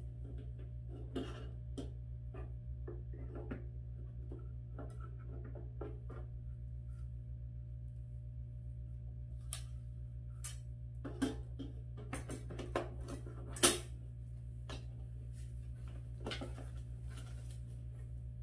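Plastic and metal parts of a PowerXL smokeless electric grill clicking, tapping and clanking as they are fitted together, with the loudest knock about three-quarters of the way through. A steady low hum lies underneath.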